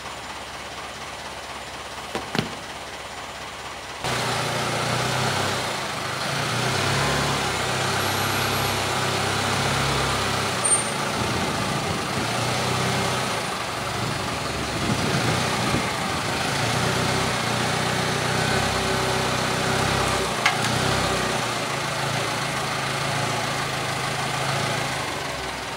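Forklift engine running under load as it pushes a traction engine along on skates. It picks up sharply about four seconds in, then runs steadily, with a small click or two before that.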